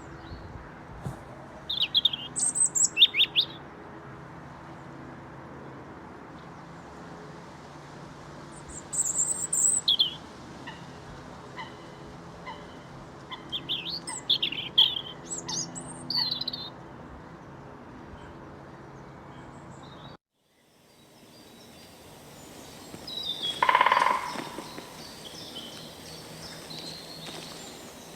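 Field recording of songbirds chirping in short bursts of high calls over a steady low hum. About twenty seconds in it cuts off suddenly and another outdoor recording fades in, with one louder call a few seconds later.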